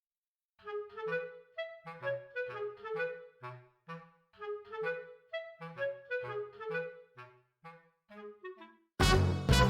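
Background music: a lively melody of short notes over a bass line, ending on a loud held chord about nine seconds in.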